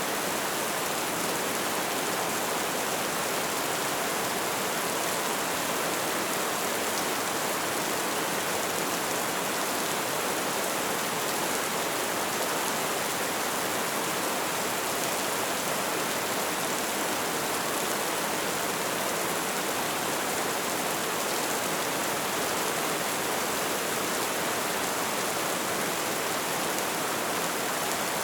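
Steady light rain falling: an even, unbroken hiss of many small drops.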